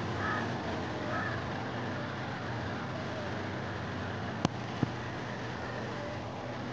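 Steady outdoor background noise, like distant traffic, with faint chirps or far-off voices, and two sharp clicks in quick succession about two-thirds of the way through.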